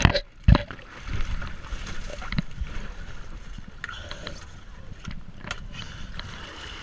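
Water splashing and sloshing around a kayak and its deck-mounted camera as the boat comes back upright after tipping over, with a sharp knock about half a second in. Lighter water lapping and a few small knocks follow.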